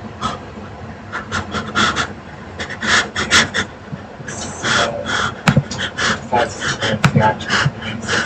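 A person making quick, irregular, breathy puffs of breath, with a few brief voiced sounds among them.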